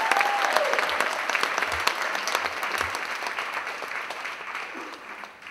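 Audience applause, a dense patter of many hands clapping, with a brief voiced call right at the start; it fades out steadily toward the end.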